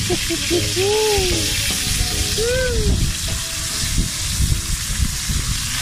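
Whole fish sizzling in hot oil in a pan over a wood fire: a steady frying hiss over the low crackle of the fire. A few short rising-and-falling whistle-like tones sound about one second and two and a half seconds in.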